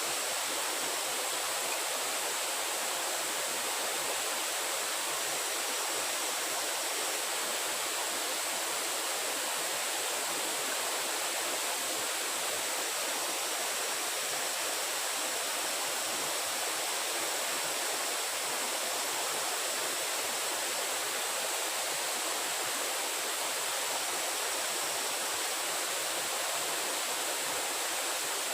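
Steady rushing noise like running water, unchanging throughout, with a thin high hiss riding on top.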